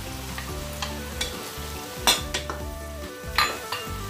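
Meat sauce sizzling in a pot while sliced hot dogs are stirred in with a wooden spatula, with a few sharp knocks of the utensil against the pot, the loudest about two seconds in and again a second later.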